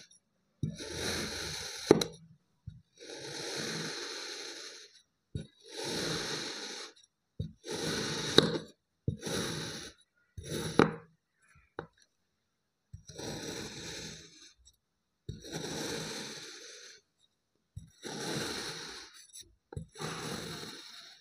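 Knife slicing through a block of kinetic sand, about ten separate cuts, each a grainy crunching scrape lasting a second or so, a few ending in a sharp click.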